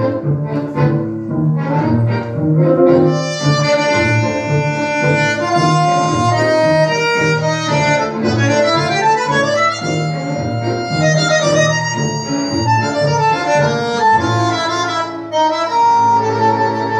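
Recorded tango orchestra music in an instrumental passage, with bandoneón and bowed strings. It opens with short detached chords, then moves into long melodic lines with a rising run about nine seconds in.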